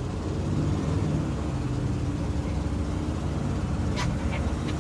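Gasoline engine of an IC CE school bus running steadily. The bus has an exhaust leak from a faulty catalytic converter. A couple of short sharp clicks come near the end.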